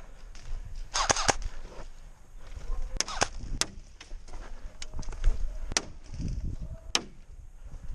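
Airsoft guns firing: a quick burst of several shots about a second in, then single shots spaced roughly a second apart, each a sharp snap.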